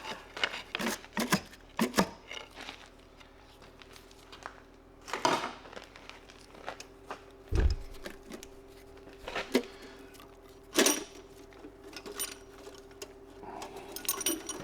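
Scattered metallic clinks and knocks of hand tools on a Chevrolet 307 V8 being stripped down at the cylinder head, with one low thud about halfway through. A steady low hum runs beneath from about five seconds in.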